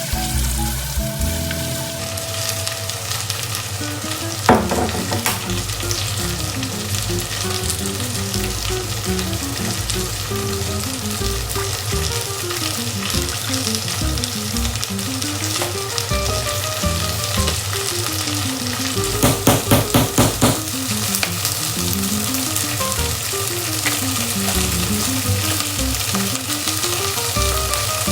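Food sizzling as it fries in a pan, with a steady hiss throughout. A single knock comes about four and a half seconds in, and a quick run of taps about two-thirds of the way through.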